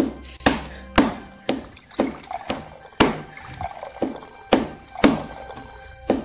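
Water running from a water dispenser's tap into a steel tumbler, under a steady rhythm of sharp knocks about two a second, which are the loudest sound.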